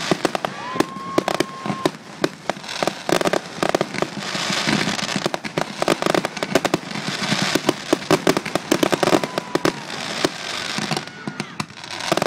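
Aerial fireworks show in a dense barrage: rapid bangs and crackling, with a whistling shell about a second in and another later on, heard through a phone's microphone.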